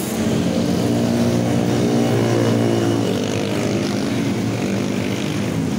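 A motor vehicle's engine running steadily, its pitch drifting only slightly.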